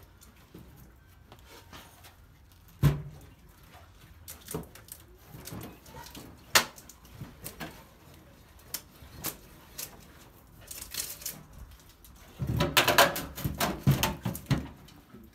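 Knocks and scrapes of a steel Volvo 240 fuel tank being jiggled loose from under the car: single sharp knocks about three and six and a half seconds in, then a dense run of clattering and scraping near the end.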